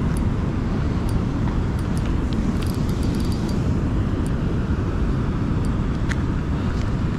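Steady low rush of fast-flowing river water, with a few faint ticks scattered through it.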